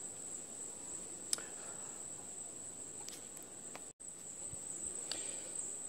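Insects singing: one steady, high-pitched continuous drone, with the sound cutting out for an instant about four seconds in.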